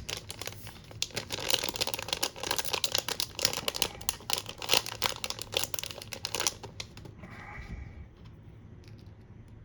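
Plastic blind-bag packet crinkling, with small plastic Lego pieces clicking and rattling in fast, dense clicks that die down about six and a half seconds in.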